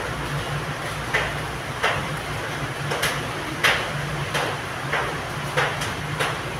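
Sharp knocks repeating evenly, about three every two seconds, over a steady low hum.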